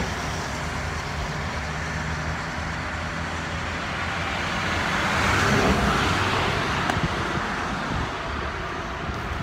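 Road traffic: a steady wash of cars going by, with one vehicle passing closer so that the sound swells and fades about halfway through. Wind gusts rumble on the microphone.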